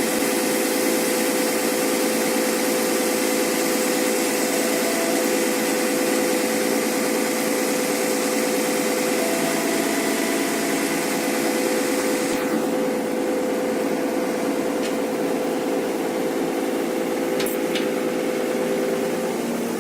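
Excavator engine running steadily with its hydraulic pump, a constant drone with a steady pitched whine; a high hiss cuts off about two-thirds of the way through.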